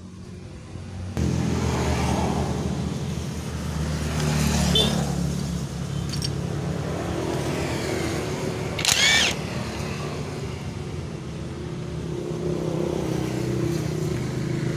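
A motor runs steadily after starting abruptly about a second in, with a short high squeak near the middle.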